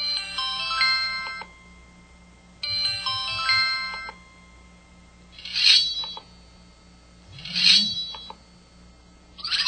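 KTF-T1000 mobile phone playing short electronic effect sounds from its sound settings through its small speaker: two stepped runs of tones about a second and a half each, then three shorter bright chimes a couple of seconds apart.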